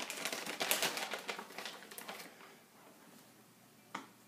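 A quick run of light, sharp clicks and taps for about two seconds, thinning out into quiet, with one more single click near the end.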